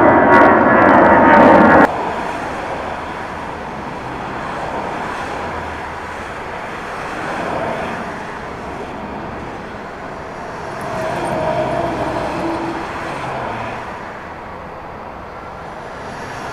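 Airbus A320-family jet airliner climbing out after take-off, loud with a whining engine tone, cut off sharply about two seconds in. Then a quieter, steady aircraft drone as a Dash 8-400 turboprop comes in to land, swelling a little past the middle.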